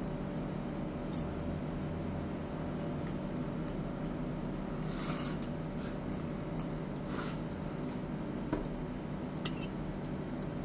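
Eating sounds of a mukbang of sweet potato and taro: a few scattered small clicks and scrapes of food and utensils over a steady low hum.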